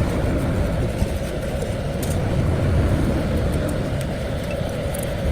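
A motor running steadily: a loud, even drone with a constant hum and a few faint ticks.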